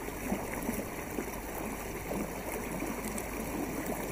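Water rushing steadily, with small trickling splashes: water running past the bow of a gliding canoe.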